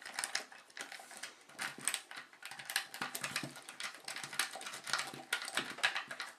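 Paperclip rake scraping and clicking over the pins of a pin-tumbler lock held under light tension: a rapid, irregular run of small metallic clicks as the pins are raked.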